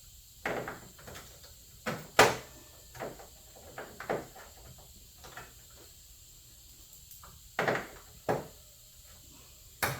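Irregular knocks and clacks of a sheet-metal hood patch panel being handled and test-fitted against the hood, about ten short hits, the loudest a little over two seconds in.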